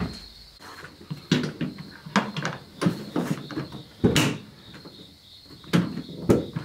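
Irregular knocks and clatters of car interior parts and hardware being handled, about ten separate hits, the loudest a little after four seconds in.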